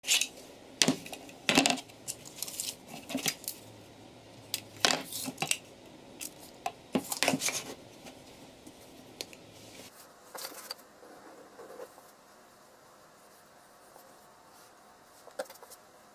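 Thin plywood boards clattering and knocking against a wooden workbench as they are handled and laid down, a quick run of sharp knocks over the first eight seconds. It then goes much quieter, with only a few faint scrapes and one small knock near the end.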